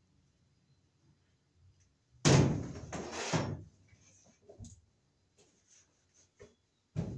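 A loud knock followed by about a second of scraping and rattling, then a shorter knock near the end: an electrical cable being handled and knocked against the joists as it is worked through the ceiling.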